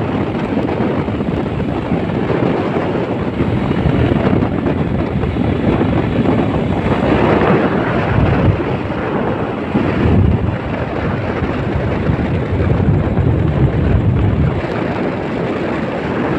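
Wind buffeting the microphone of a moving vehicle, over steady engine and road noise, with heavier low gusts several times.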